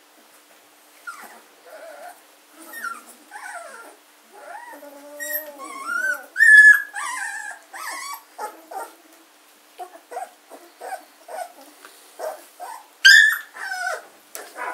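Two-week-old German shorthaired pointer puppies crying in a string of short cries that glide up and down in pitch. The loudest cries come about halfway through and again near the end.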